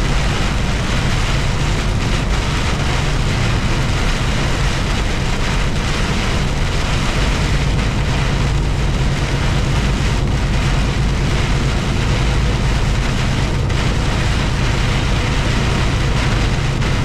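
Steady low drone of a truck's engine and road noise heard inside the cab, with heavy rain falling on the windshield and roof.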